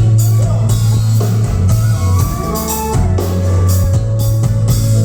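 Live band playing an instrumental passage with a drum kit, a strong bass line and guitar.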